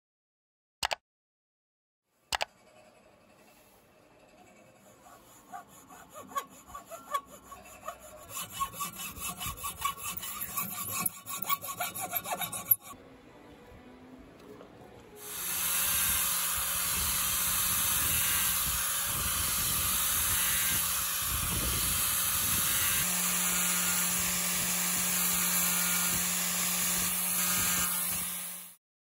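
Hand tool scraping and cutting into a turned wooden piece in irregular strokes that grow louder, stopping abruptly about halfway through. After a short lull, a motor-driven abrasive sanding disc runs steadily with a low hum while the wood's carved points are ground against it, cutting off just before the end.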